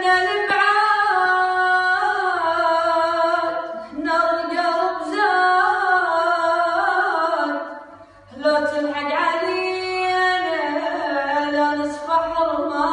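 A solo voice singing a slow, sad Iraqi Arabic song, holding long ornamented notes in phrases of about four seconds. There is a short break about eight seconds in.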